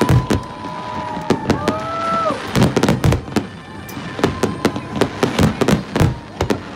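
Aerial firework shells bursting in a rapid, irregular run of sharp bangs, several a second at times.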